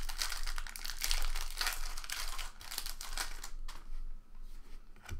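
Foil trading card pack wrapper crinkling and tearing as a pack is opened by hand, a dense crackle for about four seconds that then dies down.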